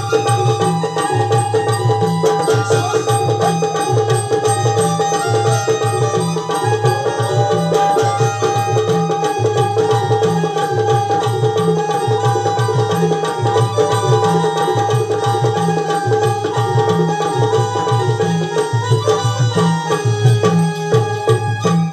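Instrumental folk dance music for Naman theatre. A hand drum, tabla-like, beats a steady repeating rhythm under long, steady held tones.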